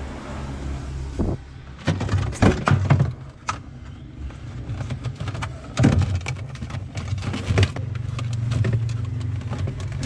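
Hands working a thermostat wire connector inside a fridge's plastic compartment: irregular clicks, knocks and rustles of plastic and wire, over a steady low hum.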